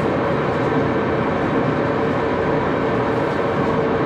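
Axelson engine lathe running steadily under power: a constant machine drone with a steady tone running through it, and no cutting or filing strokes.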